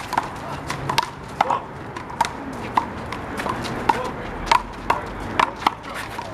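Big blue rubber handball being struck back and forth in a one-wall doubles rally: an irregular run of sharp smacks of hand, wall and court, about two or three a second, each with a short hollow ping.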